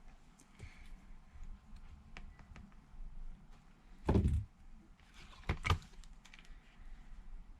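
Handling noise at a repair bench: small scattered clicks and taps, a dull thud about four seconds in, and two sharp knocks in quick succession about a second and a half later.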